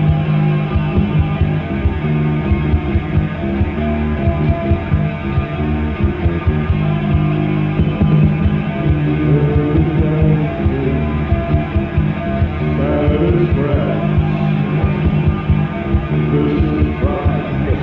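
Goth rock band recording playing: electric guitar over drums keeping a steady beat.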